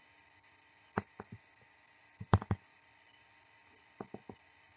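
Sharp clicks and taps from an input device while on-screen annotations are drawn: a single one about a second in, then two more just after it, a louder group of three about two and a half seconds in, and a quick group of three near the end.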